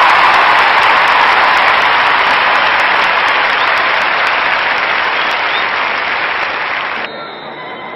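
Stadium crowd applauding, slowly fading, then cut off abruptly about seven seconds in, leaving a much quieter background.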